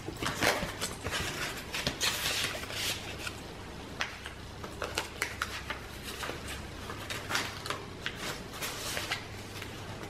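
Paper rustling as the tags, note cards and thick pages of a chunky handmade junk journal are handled and turned: scattered short rustles and light taps, busiest in the first few seconds, then sparser.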